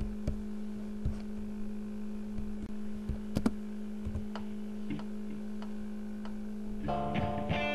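A steady low hum with a few scattered, irregular clicks; guitar music comes back in near the end.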